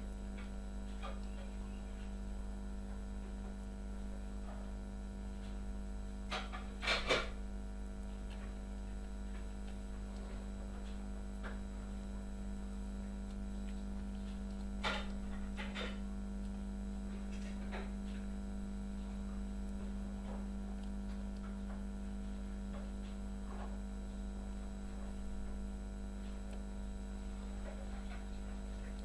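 Steady low electrical hum, with a few short clicks in small clusters about seven seconds in and again about fifteen seconds in.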